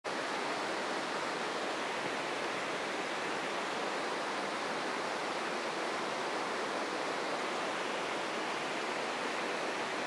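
Small waterfall cascading down boulders into a rock pool: a steady, even rush of falling water.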